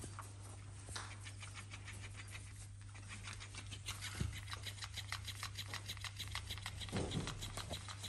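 A raccoon moving right against the microphone: rapid soft rustling and snuffling noises, several a second, with two dull thumps, over a steady low electrical hum.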